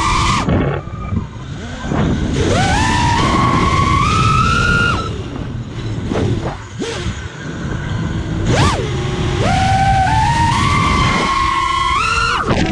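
FPV quadcopter's brushless motors whining as heard from the onboard camera, the pitch climbing and falling in steps with the throttle, with a dip about six seconds in and a quick sharp rise and fall near nine seconds. Wind rushes over the microphone underneath.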